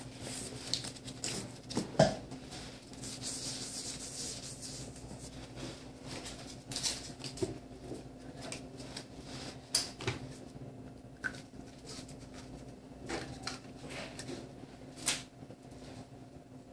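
Scattered small clicks, taps and rustles of blood-draw supplies being handled, with a sharp knock about two seconds in, over a steady low hum.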